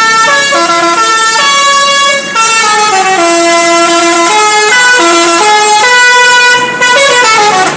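Bus telolet basuri multi-tone air horn playing a loud melody of held notes that step up and down, with two short breaks, cutting off near the end.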